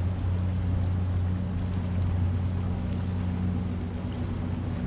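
A boat engine drones steadily at one unchanging pitch, under a hiss of water and wind.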